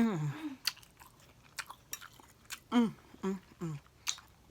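Close-miked chewing of smoked turkey: wet mouth clicks and smacks, with a few short falling hums from the throat, one at the start and three close together a little before the three-and-a-half-second mark.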